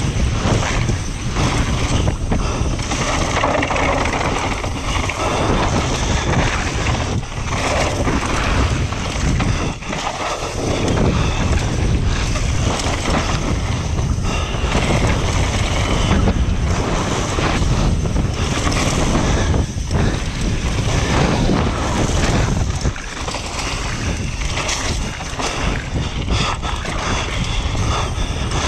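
Downhill mountain bike descending a dirt trail at speed: steady wind rush on the action-camera microphone over tyre noise on dirt, with the bike rattling over bumps.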